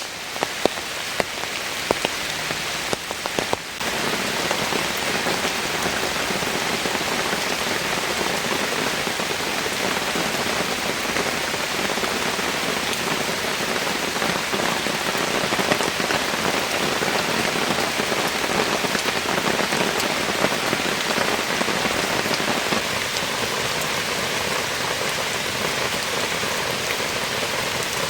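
Heavy rain falling steadily. Over the first few seconds single sharp drops tap out above it, then about four seconds in the rain gets denser and a little louder.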